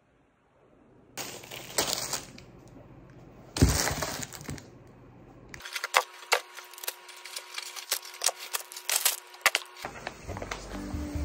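Groceries being unpacked by hand: plastic packaging rustling and crinkling, with a sharp knock about three and a half seconds in, then a long run of quick crackling clicks from the plastic wrappers as items are moved on a stone counter.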